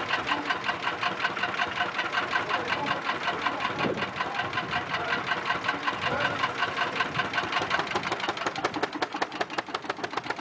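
Vintage tractor engine idling with an even, rapid knocking beat of several strokes a second.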